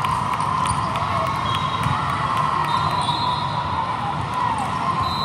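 Indoor volleyball rally: the ball thuds off players' arms and hands, and athletic shoes squeak on the court tiles, over a constant din of voices and other matches echoing through a large hall.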